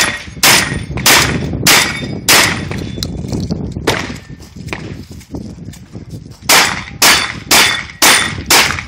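A shotgun firing in two quick strings: five shots about half a second apart, a pause of about four seconds, then five more shots at the same pace.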